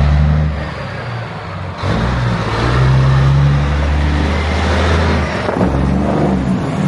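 Semi truck's diesel engine pulling away under load and driving past. The engine note drops about two seconds in, then picks up again and runs steadily.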